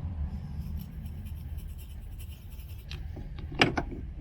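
Sharpie marker scratching on metal as a bolt-hole position is marked on the e-brake mount, over a steady low hum. A sharp knock comes about three and a half seconds in.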